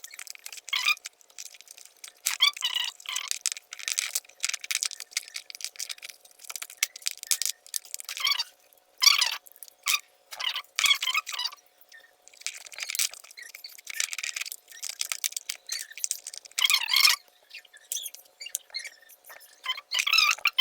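Irregular squeaks and scraping noises, coming in uneven bursts, as the cable and plastic plug of a charger lead are handled and worked on.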